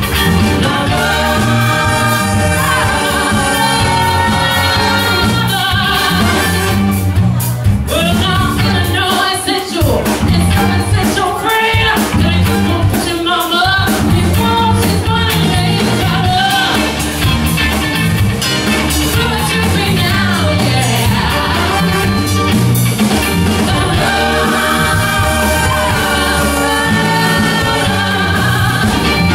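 A woman singing lead over a live band playing to a steady beat, with drum kit and horns.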